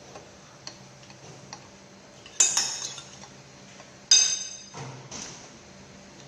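Tableware clinking: two sharp, ringing clinks about two seconds apart, each fading over a second or so, over faint regular ticks and a low steady hum.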